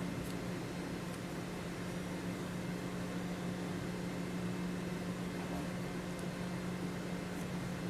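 Steady low hum with an even hiss, the kind of room noise a fan or air conditioner makes, with a few faint light ticks.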